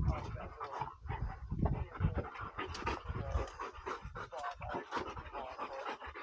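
A bird dog panting quickly and steadily while it hunts for a downed bird, with some low thumps mixed in.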